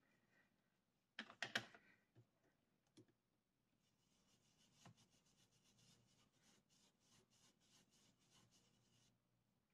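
Faint tapping of a foam blending brush on an ink pad and a plastic stencil over card: a short cluster of sharper taps a little over a second in, then a run of soft rapid dabs through the second half.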